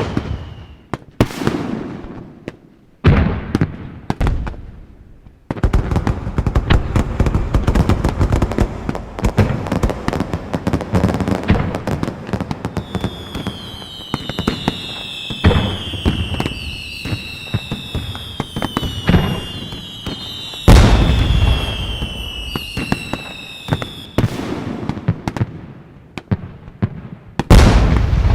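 Fireworks display: loud booming bursts and dense crackling. From about halfway through, several whistles slide down in pitch over the crackle, then more heavy bangs come near the end.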